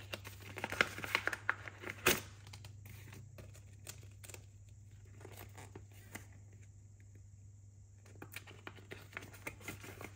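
Rustling and light clicks of cash envelopes and a binder being handled, with a sharper click about two seconds in and a quieter stretch midway.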